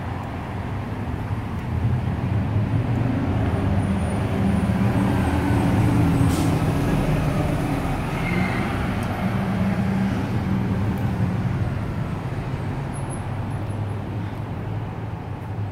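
Street traffic led by a bus's engine rumbling, growing louder through the middle and easing off again, with a brief sharp hiss about six seconds in.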